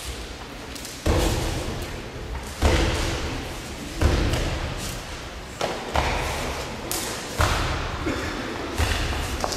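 Heavy thuds of bodies thrown down onto a gym mat during karate breakfall conditioning (ukemi tanren), about eight in all, the heaviest near the start, each echoing on in the large hall.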